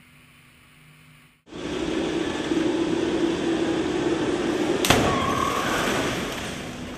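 Side-impact crash test: a loud, steady rumble with a hum starts suddenly about a second and a half in as the moving deformable barrier trolley runs in, then one sharp crash about five seconds in as it strikes the side of the 2013 Holden Commodore VF, after which the rumble fades.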